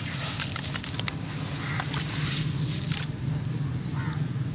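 Hands squeezing and crumbling soaked sand-cement clumps in a basin of muddy water, giving soft squishes, small crackles and drips and splashes into the water. The mix is too wet to crunch. A steady low hum runs underneath.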